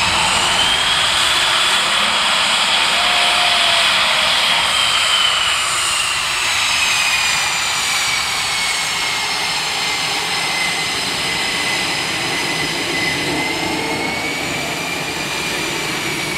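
EA-18G Growler's twin General Electric F414 turbofan engines running at low power on the ground: a high turbine whine over a steady rushing noise. The whine rises about a second in, then slowly sinks and levels off near the end.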